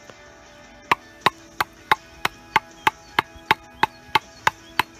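A wooden baton striking the spine of a Nieto Chamán Bushcraft knife, driving the blade across the grain through a branch: thirteen sharp, evenly spaced knocks at about three a second, starting about a second in.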